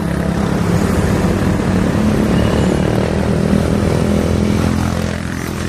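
Motor vehicles in slow road traffic, engines running steadily close by, with motor scooters among them. The engine sound eases slightly near the end.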